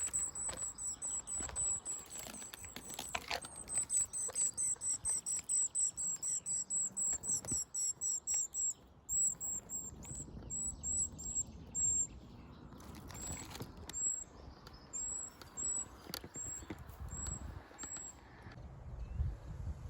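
Goldcrest singing or calling: a long run of very high, thin notes at about four a second, later thinning to spaced single notes, with scattered faint rustles and knocks.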